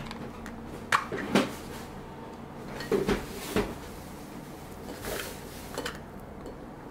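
A plastic tub of basil pesto is handled at a table: short plastic clicks and knocks as its lid comes off and it is tipped over a glass plate, then a brief scrape as a wooden spoon pushes the pesto out onto the plate.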